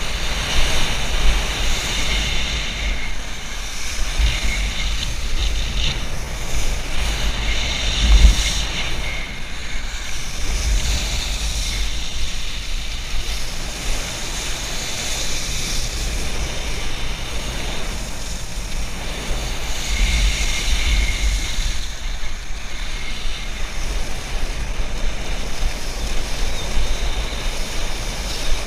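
Wind buffeting the microphone over the steady hiss and splash of a wakeboard cutting across lake water while being towed, with louder surges about 8 and 20 seconds in.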